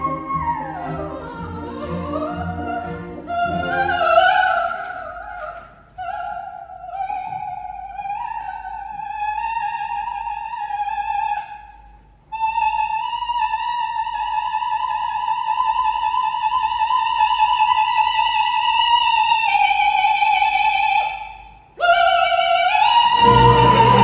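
Coloratura soprano singing an operatic cadenza with orchestral accompaniment. The accompaniment drops away after about four seconds, and the unaccompanied voice climbs through runs to a long high note held with vibrato. After a short break, a final high note rings out as the orchestra comes back in loudly near the end.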